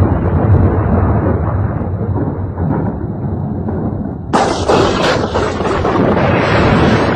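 Thunder sound effect: a heavy, continuous rumble, with a sudden new crack about four seconds in that then rolls on and slowly dies down.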